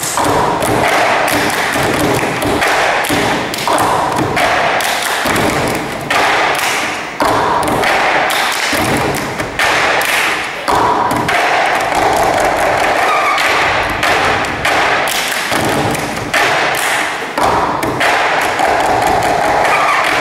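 Group cup percussion: plastic cups knocked and tapped on a wooden tabletop together with hand claps, played as a fast rhythmic pattern, with the hits ringing on in a large hall.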